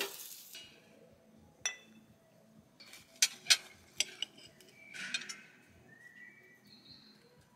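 Knives and forks clinking and scraping on ceramic plates as grilled food is cut, a few sharp separate clinks. In the first half second, food sizzling on a tabletop grill fades out.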